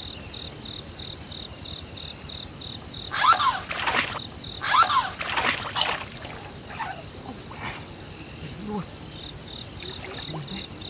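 Water splashing loudly twice, about three and five seconds in, with a few smaller splashes after, as a hooked fish thrashes at the surface. Insects trill steadily throughout.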